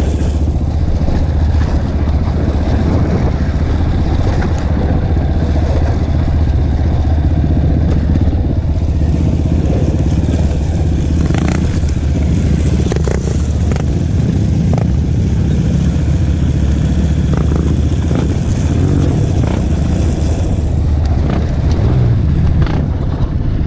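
Trail motorcycle engine running steadily while being ridden, with a few short knocks and rattles partway through.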